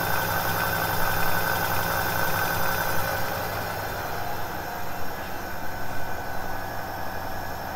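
1 kW brushless (BLDC) rear hub motor of an electric scooter running the freshly reassembled wheel on a test spin, a steady electric whine with several held tones. It gets a little quieter after about halfway.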